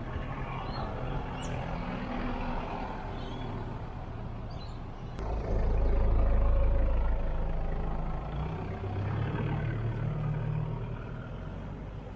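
Toyota HiAce 4WD van's 1KZ-TE four-cylinder turbo diesel crawling along at low revs, well off boost: a hollow, gristly turbo diesel sound like a little tractor. About five seconds in it passes close by, the rumble at its loudest, then it pulls away and fades.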